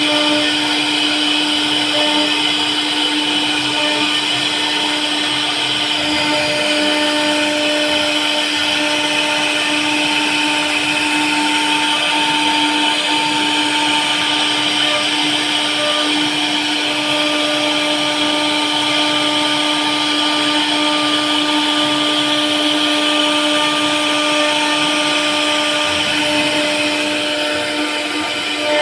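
CNC router spindle running steadily, carving wood: a constant motor whine over a cutting hiss.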